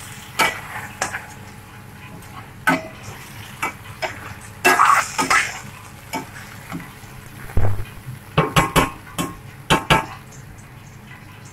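A spoon stirring chicken, potatoes and carrots in a cooking pot, with irregular knocks and scrapes against the pot over a faint sizzle. A longer scraping comes about five seconds in, and a run of sharp knocks comes near the end.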